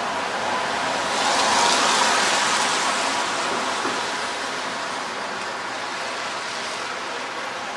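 Passing street traffic: a rushing hiss that swells about a second in and slowly fades.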